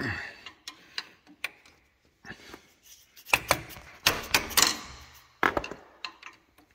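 Hammer tapping a screwdriver into the black plastic spacer in the steering rack housing, metal striking metal in irregular sharp taps, several in quick succession in the middle: the spacer being broken loose at its three indents so it can be pried out.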